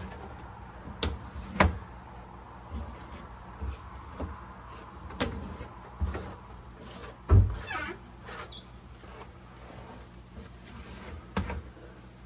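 Irregular knocks and thumps of hands-on work on the boat, six or so scattered through the stretch, the loudest about seven seconds in, followed by brief scraping. A faint steady low hum runs underneath.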